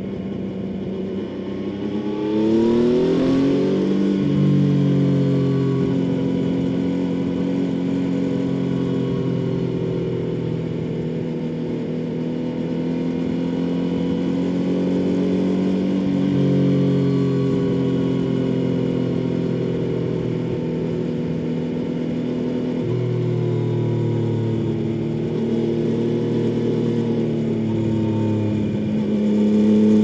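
2016 Yamaha XSR900's 847 cc inline three-cylinder engine through a Scorpion slip-on exhaust, heard while riding. The engine note rises as the bike accelerates about two seconds in, then holds fairly steady with gentle rises and falls in pitch, and climbs again near the end.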